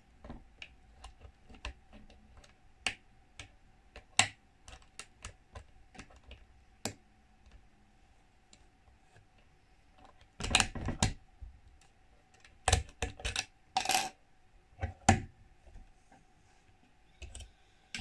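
Lever pick and tension wrench working inside a brass Old English Squire 770 four-lever padlock, giving scattered small metallic clicks as the levers are set. From about ten seconds in come louder clusters of clattering knocks as the lock comes open and is handled.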